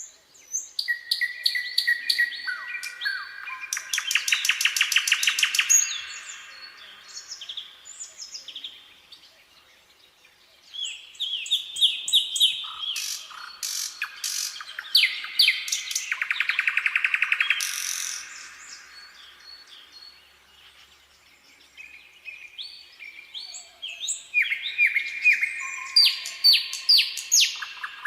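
Nightingale singing: three song phrases of repeated whistled notes and fast rattling trills, with pauses of a few seconds between them.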